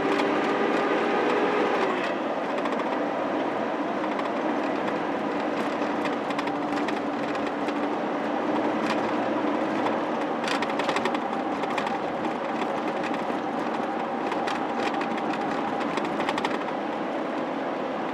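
Steady road and tyre noise heard inside a moving car's cabin, with a few short clicks and rattles scattered through it.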